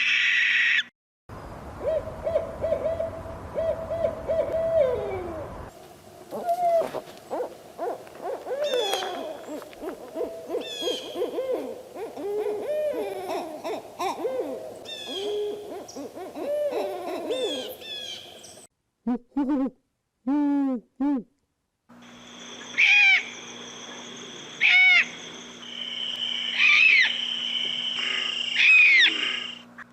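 Owl calls from several recordings cut together: a brief harsh screech at the start, a held low hoot that drops at its end, then many short hoots with higher chirps over them, and repeated higher calls near the end.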